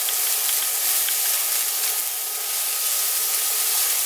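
Diced red onion and minced garlic sizzling steadily in hot macadamia nut oil in a skillet on high heat, stirred with a silicone spatula that rubs across the pan.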